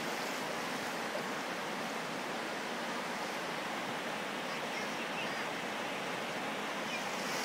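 Steady rush of a shallow, rocky river, mixed with the splashing of people wading through it.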